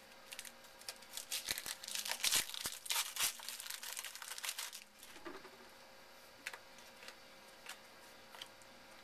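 Plastic wrapper of a football trading card pack crinkling and tearing as it is opened, a dense crackle for about the first five seconds, then a few light clicks of cards being handled.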